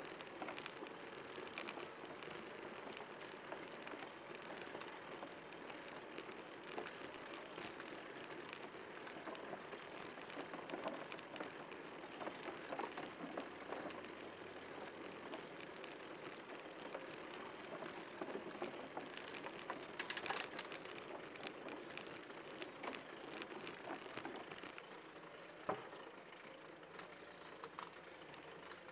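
Recumbent tadpole trike rolling along a slatted boardwalk: a steady patter of tyres over the deck with rattling and small clicks from the frame and the chain rubbing in its guard. A sharp knock comes about 26 seconds in, and after it the rolling is a little quieter on smooth concrete.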